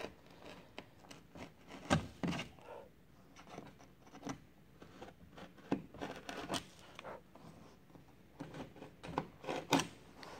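Irregular short scrapes and clicks of a hand tool working wood on a canoe hull, with a few louder knocks: about two seconds in and near the end.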